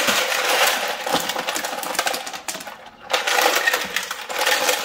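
Ice cubes clattering and rattling in a plastic freezer ice bin as they are shaken out into a butter churn, with a short pause about two and a half seconds in before more clattering.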